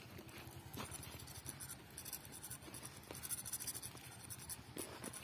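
Spinning reel being worked against a hooked fish: a rapid run of faint clicks and scratches from the reel.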